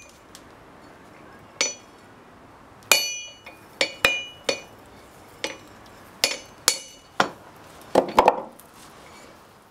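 Hand hammer striking a red-hot steel vise handle on an anvil to straighten its bend: about a dozen light, irregularly spaced blows, each with a short metallic ring.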